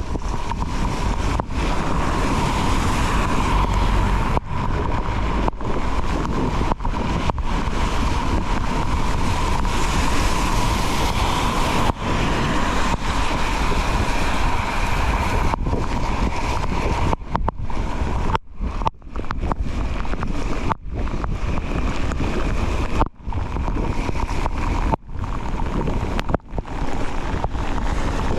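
Wind rushing over an action camera's microphone during a fast mountain-bike descent: a loud steady rush with a faint steady tone through the first half. In the second half the sound cuts out briefly many times.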